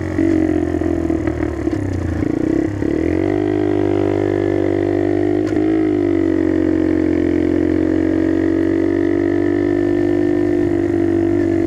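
Skyteam Dax minibike engine running through an NHRC carbon exhaust while riding at a steady pace. About two to three seconds in the note turns briefly uneven, then rises a little in pitch and holds steady.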